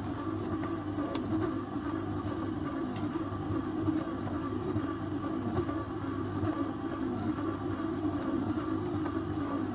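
Electrolux EKM9000 stand mixer running steadily under load, its dough hook kneading a heavy batch of bread dough (about 1.5 kg): an even motor hum with a few light clicks in the first three seconds.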